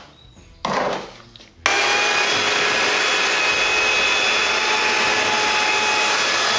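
Handheld electric paddle mixer switched on about a second and a half in, then running steadily with a motor whine as it mixes a bucket of wet clay plaster.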